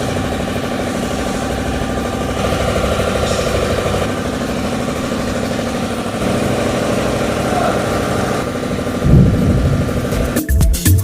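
Perodua Kenari's 1.0-litre three-cylinder engine idling steadily, with a brief louder rise about nine seconds in. Music comes in near the end.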